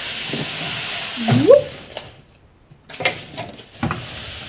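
Polystyrene foam shipping box sliding out of its cardboard sleeve with a steady scraping hiss and a short rising squeak. After a sudden break, a few light knocks come as the foam box is handled on the table.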